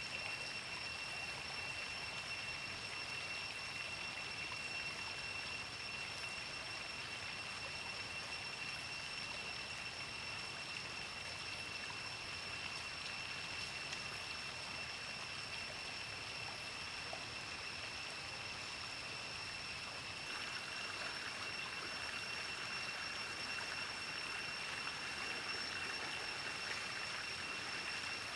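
Shallow forest stream running, a steady rush of water, with a thin, steady high-pitched whine held throughout. The water noise grows a little louder about twenty seconds in.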